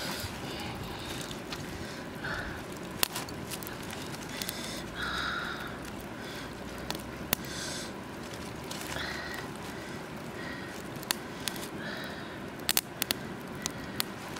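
Hands squishing and rubbing raw whole chickens coated in wet turmeric and chili paste in a wicker basket, with scattered sharp crackles and clicks throughout.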